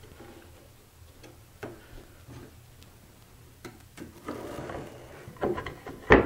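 Small clicks and taps of a square and marking tool handled against a walnut panel, with a short scrape as the mark is drawn a little past the middle and a sharper knock near the end.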